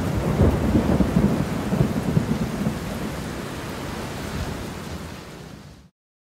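Low, uneven rumbling over a steady hiss, fading gradually and then cutting off suddenly near the end.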